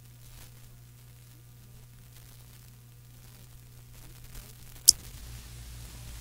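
Reel-to-reel tape's background noise between takes: an even hiss and a steady low mains hum, broken by one sharp click a little under five seconds in.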